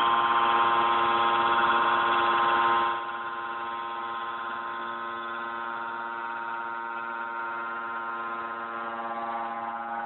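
A steel rod heating machine running with a steady, high-pitched multi-tone whine. The whine drops noticeably in level about three seconds in and then holds steady.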